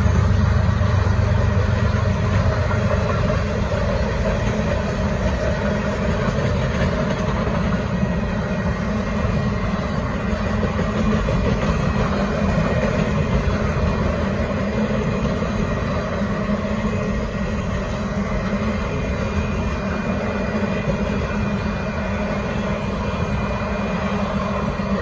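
Kansas City Southern de México freight train of empty cars rolling past over a grade crossing, with a steady rumble of wheels on the rails.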